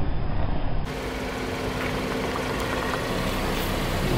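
Car engine running steadily at a slow roll, a low hum with a steady tone. In the first second there is a rougher low rumble, which then gives way to the hum.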